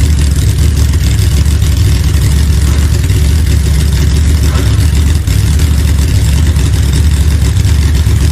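Pro Modified drag-racing V8 engine idling with a steady low rumble.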